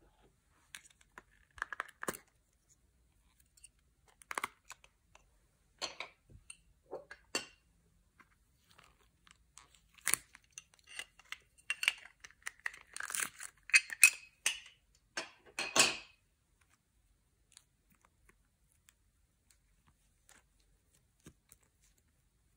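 Soft modelling clay being handled by hand, pressed into and peeled from a plastic mould: scattered short crackles and clicks, thickest in the middle and dying away about two-thirds of the way through.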